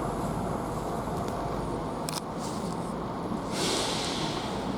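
West Midlands Railway Class 172 diesel multiple unit standing at the platform with its engines idling in a steady low rumble. A hiss lasting about a second comes about three and a half seconds in.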